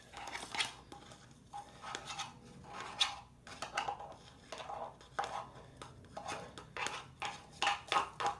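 Plastic knife scraping, stirring and tapping through freshly frozen soap-and-shampoo slime in a plastic container: an irregular run of short scrapes and clicks, a few a second.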